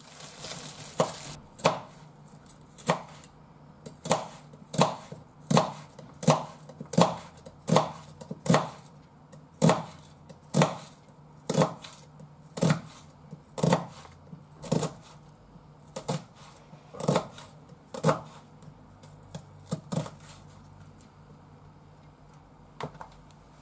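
Kitchen knife slicing an onion on a cutting board: a steady series of sharp knocks of the blade on the board, about one a second. The knocks stop about 20 seconds in, with one more near the end.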